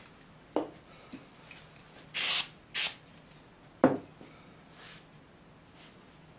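Two short hissing sprays of CA glue activator from an aerosol can, with a sharp knock a little before them and a louder one just after.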